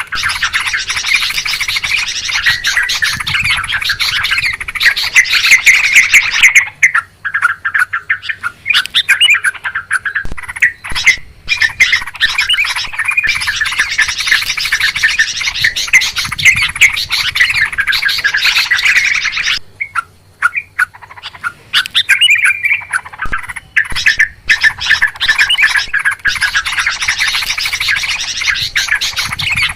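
A flock of yellow-vented bulbuls calling noisily: many overlapping, fast chattering calls in long bursts, with short breaks between them.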